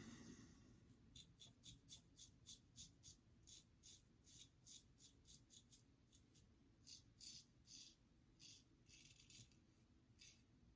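Faint scraping strokes of a GEM Pushbutton single-edge safety razor cutting stubble on a pass against the grain. The short strokes come about two a second, then a brief pause and a few longer strokes.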